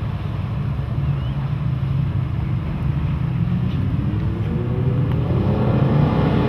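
Suzuki 300 HP V6 four-stroke outboard running under way with a low, steady rumble; about halfway through its pitch rises as the throttle opens and the boat gathers speed, then holds steady.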